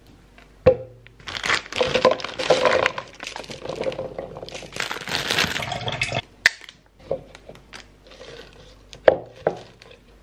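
Food going into a plastic blender cup: a few seconds of rustling as a banana is peeled and bags of frozen berries and spinach are handled, then a few sharp knocks of pieces dropped into the cup.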